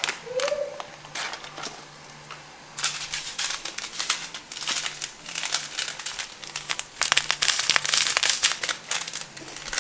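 Small clear plastic sachet of sugar sprinkles crinkling as it is worked between the fingers close to the microphone: a few scattered crackles at first, then dense, rapid crinkling from about three seconds in until near the end.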